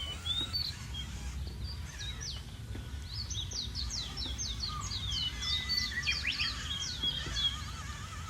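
Birds chirping, with a quick run of short, falling chirps in the middle, over a steady low rumble.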